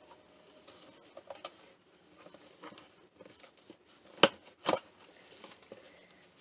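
Cardboard shipping box being opened by hand: rustling and scraping of flaps, tape and packing, with two sharp knocks about four seconds in.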